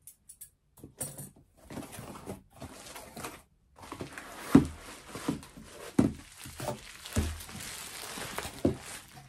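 A cardboard shipping box being opened by hand: short scrapes and clicks of tape and flaps over the first few seconds. Then, from about four seconds in, steady crinkling of a plastic bubble-wrap package being lifted out of the box, with several dull thumps against the cardboard.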